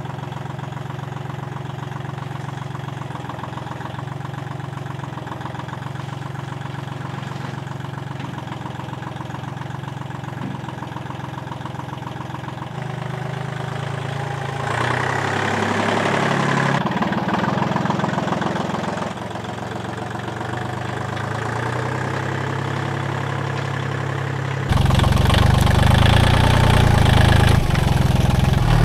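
Kubota L1-18 compact tractor's diesel engine running: steady at first, picking up speed and loudness about halfway through, easing back, then suddenly louder near the end.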